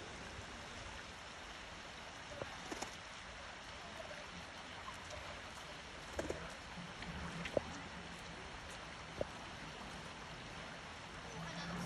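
Steady rush of flowing river water, with a handful of short, faint clicks scattered through it.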